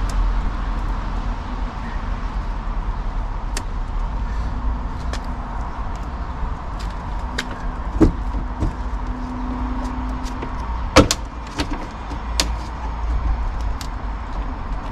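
Scattered knocks and clicks as a car door skin is worked loose and pulled away from the door, the loudest about eleven seconds in, over a steady low rumble.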